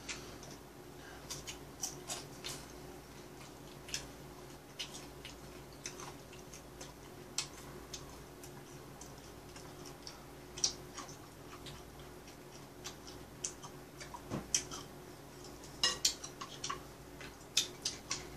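Chopsticks and a fork clicking and tapping now and then against plates and a foil tray while fried chicken gizzards are eaten, with a cluster of louder taps near the end. A steady low hum runs underneath.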